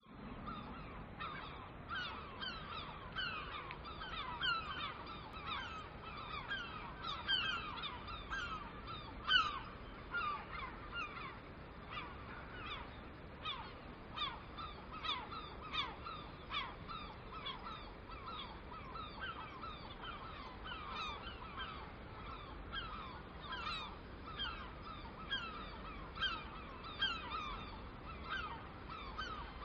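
A flock of birds calling continuously, with many short falling calls overlapping one another.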